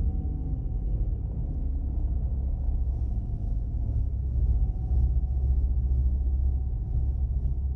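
Science-fiction UFO sound effect: a steady, deep low drone with faint thin tones hovering above it.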